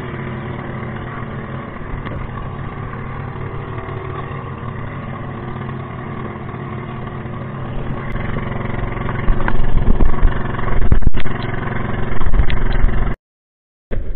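Outrigger boat's engine running steadily under way, a steady drone. It grows louder and choppier in the later seconds, then cuts off suddenly near the end.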